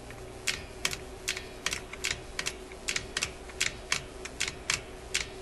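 Sharp mechanical clicks, about three a second at uneven spacing, as the moving parts of a Seeburg Tormat electrical selector are worked by hand.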